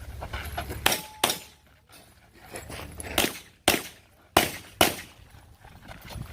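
Stock service pistol firing rapid shots on a timed IDPA stage: six loud, sharp shots in three pairs, with a few fainter pops in between.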